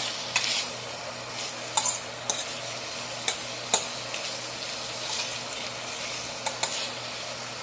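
Chicken pieces sizzling steadily as they fry in a stainless steel pan, with a few sharp clicks and scrapes scattered through as the pieces are turned.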